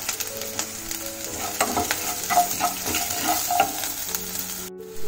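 Shallots, green chillies and dried red chillies sizzling in hot coconut oil, with fresh cumin, mustard and fenugreek seeds, as a wooden spatula stirs and scrapes them around a nonstick pan. A steady sizzle with many small clicks.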